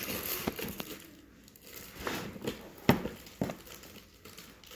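Candy wrappers crinkling and rustling as the candy is handled, with a few short sharp taps, the loudest about three seconds in.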